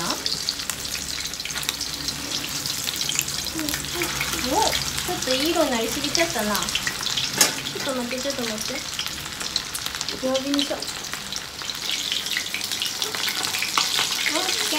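Chicken pieces coated in flour and katakuriko frying in about 2 cm of hot oil in a wok-style pan, a steady crackling sizzle. There is a sharp tap about halfway through.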